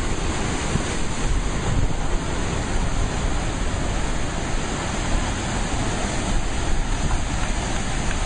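Sea surf with wind buffeting the microphone: a steady rushing noise with a rumbling low end.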